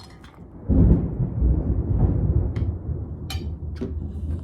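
A sudden loud low rumble starts under a second in and keeps going. A few sharp clinks of spoons on mixing bowls, from stirring slime, sound over it.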